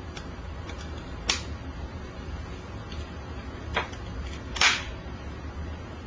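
A handful of short, sharp clicks or knocks, the loudest about a second in and another late on, over a steady low hum.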